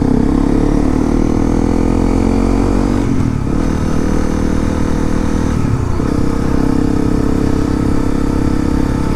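Honda CRF250L's single-cylinder four-stroke engine accelerating. Its pitch rises for about three seconds, breaks at a gear change, and holds steadier, with another change around six seconds in.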